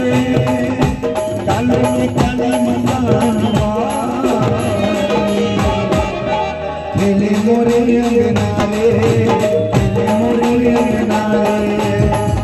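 Live Indian devotional bhajan band playing: hand drums (tabla, dholak, dhol) keep a driving rhythm under a melody of held notes that glide between pitches, over harmonium and keyboard. The music briefly thins about six seconds in, then comes back in full.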